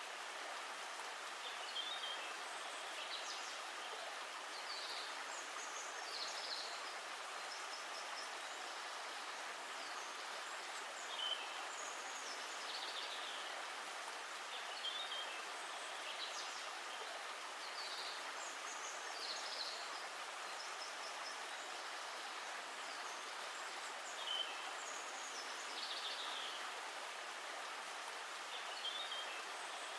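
A steady hiss of water, with small birds chirping briefly every second or two over it.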